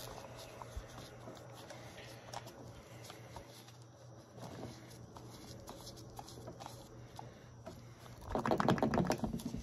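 Plastic parts of an Echo SRM-210 string trimmer's engine housing being wiggled and pressed into place by gloved hands: faint scattered clicks and taps, then a denser run of plastic clicking and rattling about eight seconds in.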